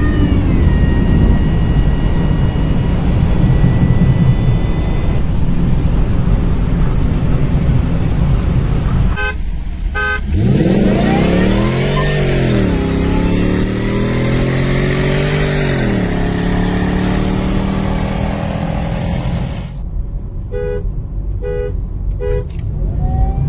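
Car engine accelerating hard under loud rumble and wind noise. Its pitch rises, falls back at a gear change about twelve and a half seconds in, and climbs again. Short beeps come twice, near ten seconds and again near the end.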